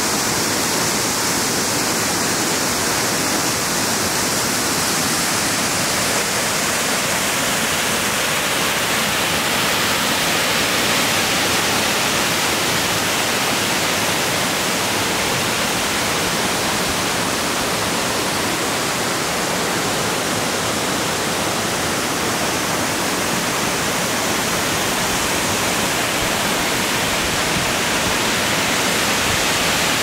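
Stewart Falls pouring down a rock cliff close by: a steady, unbroken rush of falling water.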